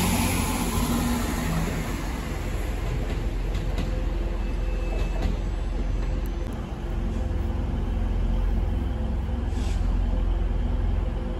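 Train noise: a passenger train moves off with light wheel clicks and squeaks. Then the deep rumble of a diesel freight locomotive's engine grows heavier, about seven seconds in, as it approaches hauling a line of wagons.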